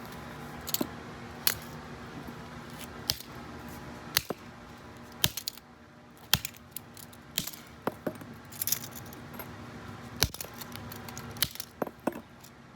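A metal door handle being smashed apart on concrete: about a dozen sharp metallic strikes at an uneven pace, roughly one a second, with small metal parts clinking.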